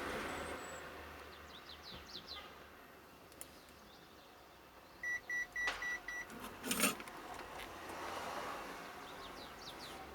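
Five short electronic beeps in quick succession on one steady high pitch, followed a moment later by a sharp knock, with a soft hiss rising and falling around them.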